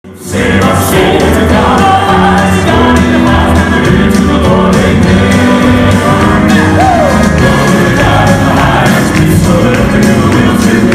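Southern gospel male vocal quartet singing in close four-part harmony into handheld microphones, amplified through a stage sound system.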